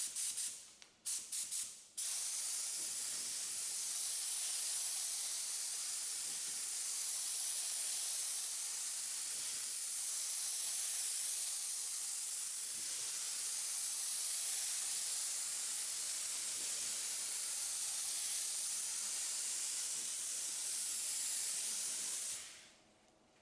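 Compressed-air paint spray gun with a 1.8 mm nozzle hissing as it sprays epoxy primer onto a car door. There are a few short trigger bursts in the first two seconds, then one long continuous spray that cuts off suddenly near the end.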